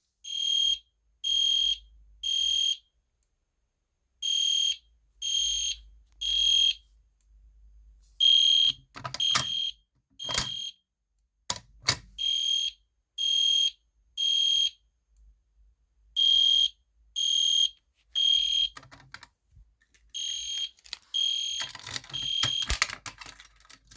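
EST Genesis G1-HDVM fire alarm horn sounding the code-3 temporal evacuation pattern after its pull station is pulled: three half-second blasts at one high steady pitch, a pause, then three more, repeating about every four seconds. Scattered clicks and knocks come between the blasts in the middle and near the end.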